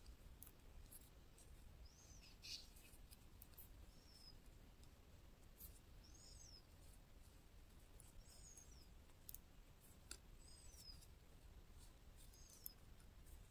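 Near silence, with faint clicks of metal knitting needles and a faint bird chirp repeating about every two seconds.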